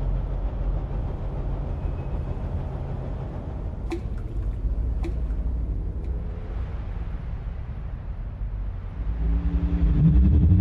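A motor vehicle running with a steady low engine hum and road noise. There are two sharp clicks about four and five seconds in, and the engine note gets louder and shifts in pitch near the end.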